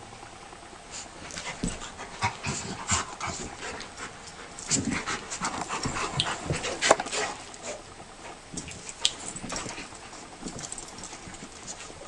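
A young Rottweiler and a beagle play-fighting: a run of short, irregular dog sounds, busiest from about four to seven seconds in, with one sharp sound near seven seconds.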